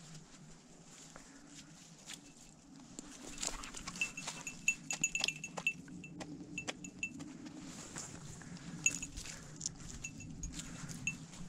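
A duck being plucked by hand: feathers torn out in quick, crackly little rips, busiest in the middle and again near the end. A small bell tinkles now and then.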